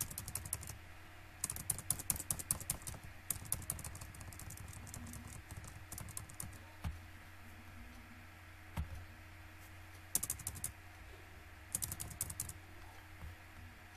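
Computer keyboard keys, the backspace key, tapped rapidly in several bursts of quick clicks, over a low steady hum.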